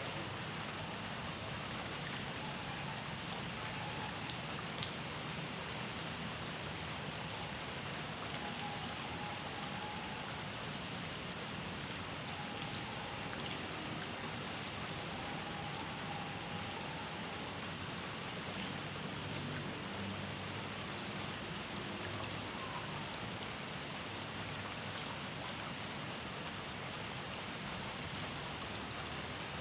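Steady rain falling on a pond: an even hiss with a few sharper drop ticks, two about four to five seconds in and one near the end.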